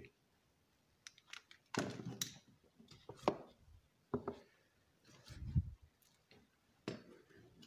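Handling noises: foil coffee packets rustling and bumping, and a kitchen drawer being opened. There are several separate knocks and clicks, and a low thump about five and a half seconds in.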